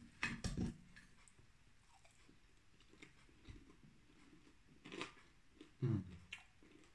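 Close mouth sounds of a man chewing a bite of grilled pork neck with tzatziki, with a few sharp bite sounds in the first second. Near the end comes a short contented 'mmm' hum that falls in pitch.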